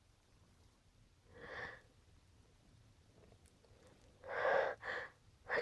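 A person's breathy gasping inhales building up to a sneeze: one faint gasp about a second and a half in, then louder, quicker ones near the end.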